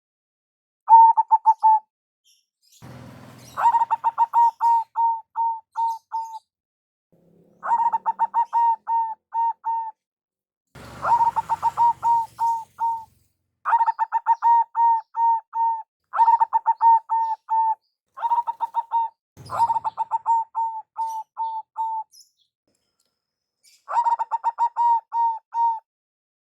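Zebra dove (perkutut) cooing: about ten repeated phrases, each a quick stuttering run of short, clear, high coos lasting one to two seconds, with short pauses between. A brief low rustle comes just before three of the phrases.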